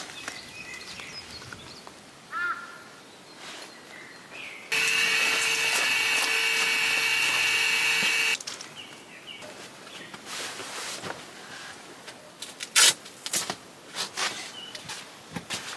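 A small electric motor runs steadily for about three and a half seconds, starting and stopping abruptly, with a fixed whine. It is surrounded by scattered clicks and rustles of handling gear.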